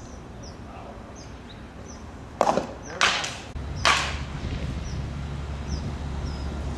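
Three sharp knocks within about a second and a half, with a short high chirp repeating about every half second and a low hum coming in after the knocks.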